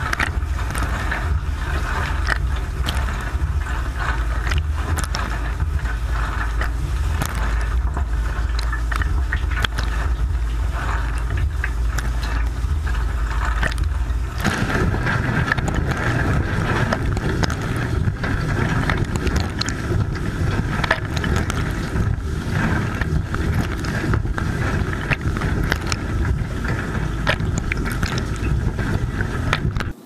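Dishwasher running mid-cycle, heard from inside the wash tub: water jets spraying against the racks over the pump's steady rumble. About halfway through, the sound shifts: the deep rumble drops away and the spray's rush comes up.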